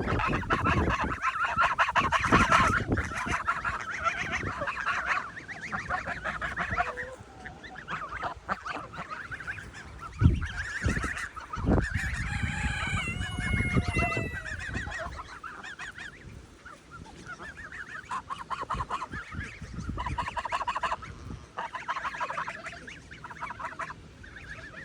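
A flock of Roman Tufted geese honking, dense and loud for the first several seconds, then in shorter bursts. A couple of low thumps near the middle.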